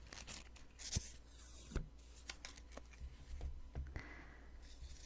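Post-it sticky notes being peeled and handled: crisp paper crackles and rustles, with two sharper ticks about one and nearly two seconds in.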